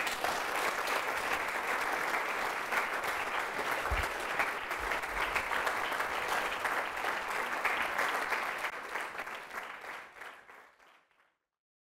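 Audience applauding, a steady clatter of many hands clapping that fades out about ten seconds in.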